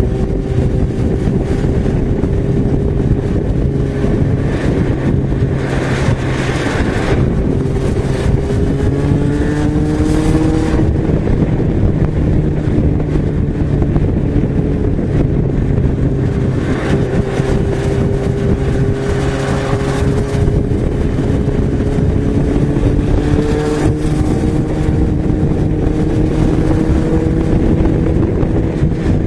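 Yamaha XJ6's 600 cc inline-four engine running at cruising revs on the road, its note rising slowly now and then as it pulls, under a steady rush of wind noise.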